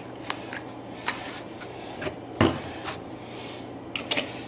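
Soldering gear handled on a tabletop: several short, light clicks and knocks, the loudest about two and a half seconds in and a quick double click near the end.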